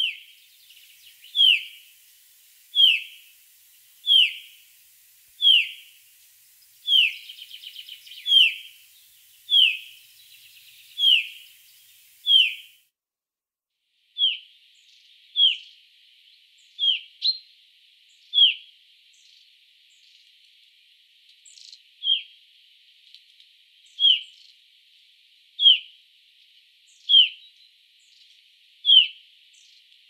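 Common chaffinch of the Black Sea subspecies giving a single short call note over and over, a quick downward-sliding whistle repeated about every second and a half, with a few brief pauses.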